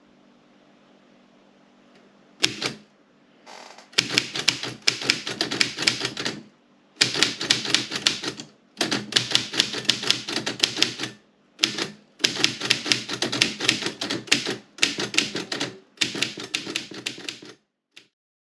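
Woodstock 5 manual typewriter being typed on: quick runs of key strikes, each run lasting one to two and a half seconds, with short pauses between them. Before the typing begins there are a couple of seconds of faint hum and a single strike.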